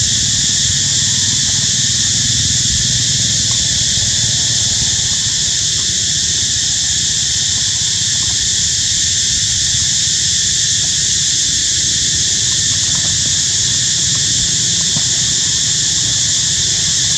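A loud, steady chorus of cicadas, an even high-pitched drone that neither starts nor stops, over a low rumble.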